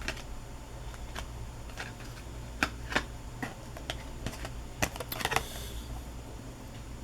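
Trading cards being handled and sorted by hand: irregular light clicks and snaps, with a short rustling slide about five seconds in, over a steady low hum.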